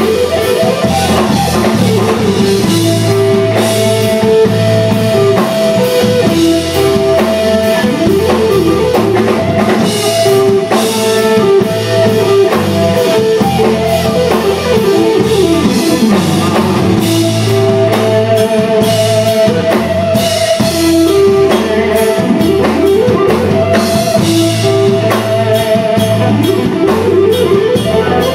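Live instrumental rock from an electric guitar, bass guitar and drum kit: the electric guitar plays lead lines with held and bent notes over the bass and drums.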